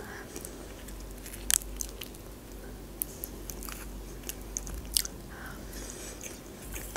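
Close-miked chewing of a baked mussel: soft wet mouth sounds, with a few sharp clicks along the way.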